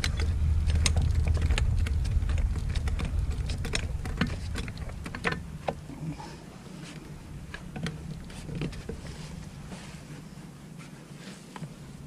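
Hand ratchet clicking in short, irregular runs as it is swung back and forth on a torque multiplier's input, working at a frozen lug nut. A low rumble runs under it for the first four seconds or so, then fades away.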